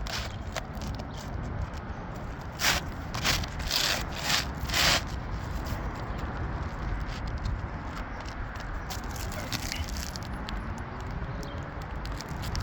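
About five short scraping rubs close to the microphone, bunched together around three to five seconds in, over a steady low rumble.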